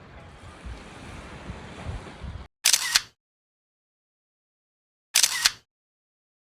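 Wind and surf noise that cuts off abruptly after about two and a half seconds. Over dead silence, a camera shutter sound effect then clicks twice, about two and a half seconds apart, each a quick double snap.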